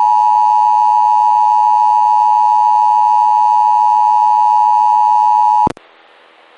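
Emergency Alert System attention signal: a loud, steady two-tone alert on an FM radio broadcast. It cuts off suddenly about five and a half seconds in, leaving faint hiss before the voice message.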